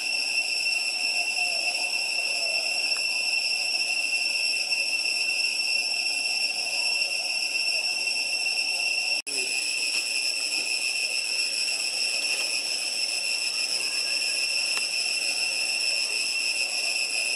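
Steady high-pitched drone of cicadas, one unbroken tone that cuts out for an instant about nine seconds in.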